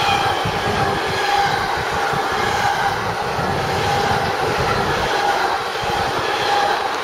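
Long freight train of pocket wagons carrying lorry semi-trailers passing close by: a steady rumble and clatter of wheels on rail, with a thin high ringing tone that comes and goes.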